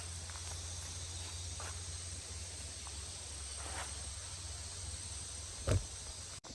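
Jungle insects buzzing in a steady high-pitched drone over a low steady hum, with one sharp thump near the end.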